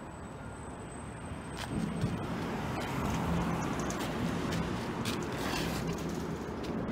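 Street traffic noise, with a vehicle engine's low hum coming in close about two seconds in and the overall noise rising with it.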